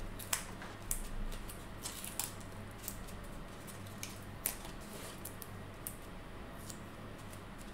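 Faint handling sounds of foam adhesive squares and cardstock: scattered small clicks and soft rustles as the squares are peeled from their sheet and pressed onto the paper layers, over a low steady hum.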